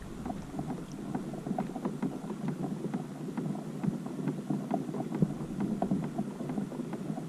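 Water lapping and sloshing against a kayak hull, with many small, irregular clicks and taps throughout.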